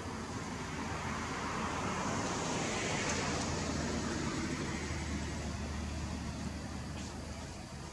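A motor vehicle passing: its noise swells from about a second in, is loudest around the middle, then fades near the end, over a steady low hum.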